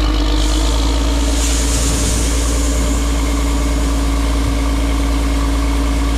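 Heavy farm machinery engine running steadily with a constant hum, a hiss swelling and fading between about one and a half and three seconds in; the sound cuts off abruptly at the end.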